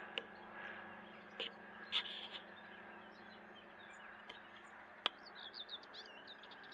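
Birds chirping faintly outdoors, with a quick run of high chirps about five and a half seconds in, over a steady low hum and a few sharp clicks.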